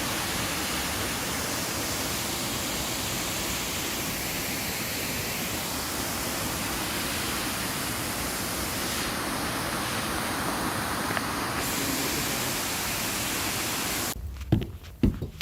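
Steady rush of a waterfall, cutting off suddenly near the end. After it come a few knocks and footsteps in a quiet room.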